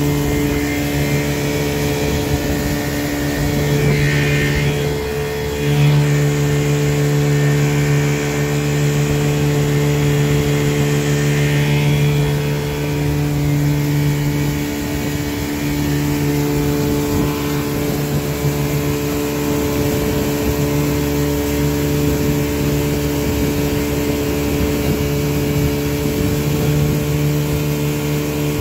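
Small boat's outboard motor running steadily at an even pitch as the boat travels along.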